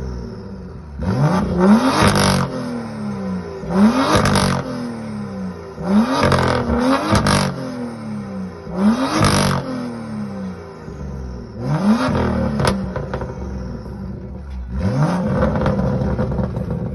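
A BMW M car's engine being revved hard while stationary, about six times, each rev climbing sharply and then falling back. A sharp pop follows one of the later revs.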